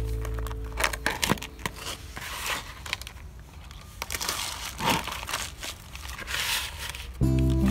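Crinkling and rustling of material being handled by hand, in irregular bursts with a few sharper crackles. Background music comes back in near the end.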